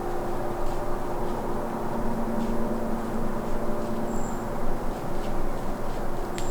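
Steady mechanical drone with several held low tones, like a distant engine or machinery, with a few brief high chirps over it.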